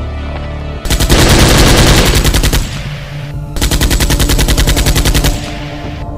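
Automatic gunfire sound effect laid over a Nerf blaster: two long bursts of rapid fire, the first starting about a second in, the second a little past the middle.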